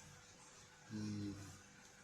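A man's short, low vocal sound, such as a hum or grunt, about a second in. It lasts about half a second at a steady pitch over a faint background hum.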